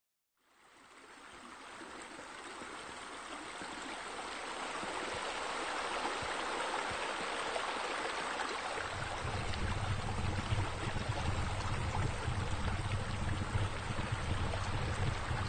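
Steady rush of running water, fading in over the first couple of seconds; a low steady hum joins it about nine seconds in.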